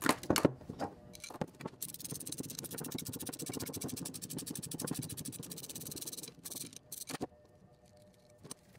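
A ratcheting wrench clicking rapidly and evenly for about four seconds as it unscrews the fitting from a braided AN fuel hose, with a few sharp metal knocks of the tool and fitting before and after.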